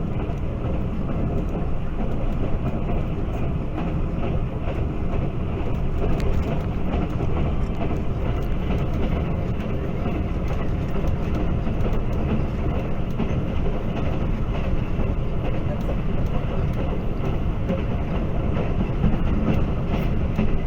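Pakistan Railways passenger train running along the track: a steady rumble of wheels on rails with faint scattered clicks.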